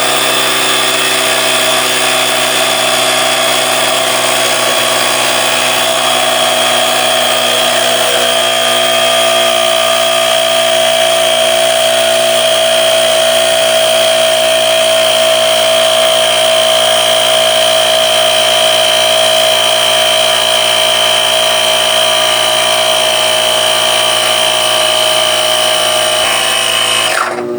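Small battery-powered air compressor running steadily while it pumps up a bicycle tyre: an even motor hum and whine with a hiss, cutting off suddenly near the end.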